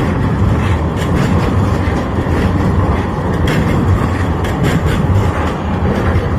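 Steady low rumble of a vehicle in motion, with light clicks and rattles over it.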